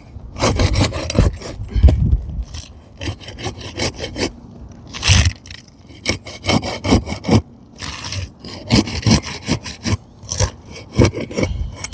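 Crowbar scraping under an asphalt shingle in many short, irregular strokes, cutting through the tar sealant strip to unseal it.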